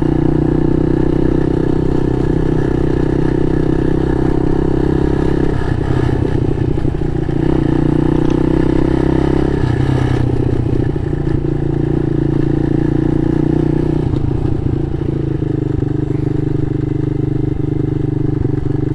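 Mini motorcycle's small single-cylinder engine running while riding a rough dirt trail, its note shifting several times as the throttle and gears change, with some clatter over the uneven ground.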